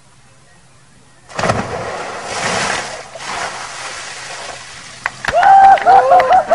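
A sudden loud splash and rush of water about a second in, as a person lands in a water-filled inflatable paddling pool. Then loud whooping and shouting near the end.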